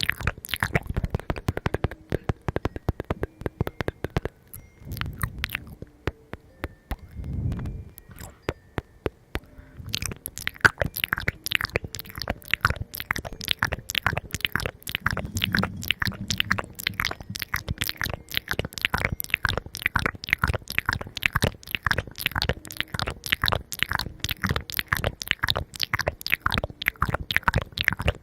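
Close-miked chewing of crunchy food, with many sharp crisp crunches. The crunches are sparse at first and come thick and fast from about ten seconds in.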